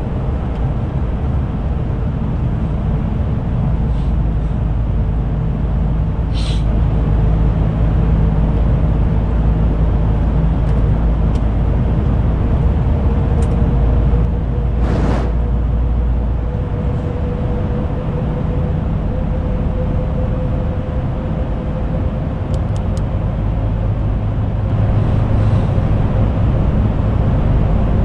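Heavy truck driving at steady speed, heard from the cab: a dense low engine and road rumble with a steady whine over it that rises slightly near the end. A single sharp click sounds about halfway through.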